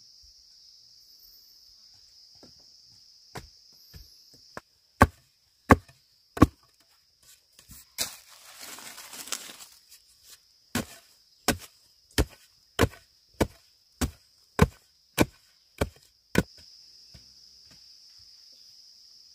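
Bamboo being chopped with a blade: a few sharp chops, a stretch of crackling splintering about eight seconds in, then a steady run of about ten chops, a little under two a second. Insects buzz steadily at a high pitch underneath.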